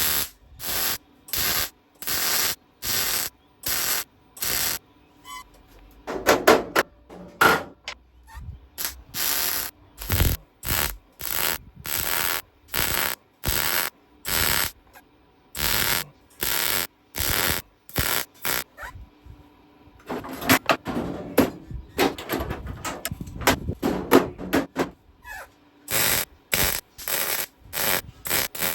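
Welding the steel outer sill panel in short crackling bursts, each a fraction of a second, roughly one to two a second, stitching the panel in along the clamped seam. Two longer, denser runs of welding come about a quarter of the way in and again past two-thirds.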